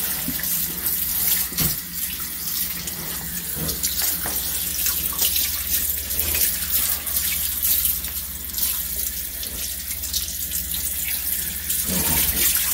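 Kitchen faucet's pull-down sprayer running steadily, spraying water over a wet dog in a sink to rinse off the shampoo. It makes an even high hiss with a few brief splashes.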